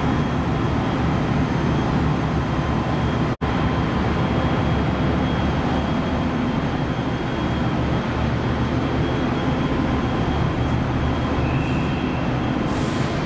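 Steady drone of the car ferry Esan 2000's shipboard machinery, a dense low rumble with a thin steady high whine above it. The sound drops out for an instant about three seconds in.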